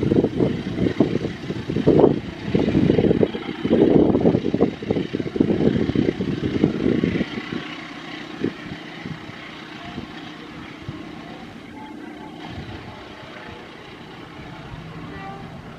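Train passing through a railway station: a loud, low rumble with irregular knocks for about seven seconds, then it dies down to a quieter steady hum.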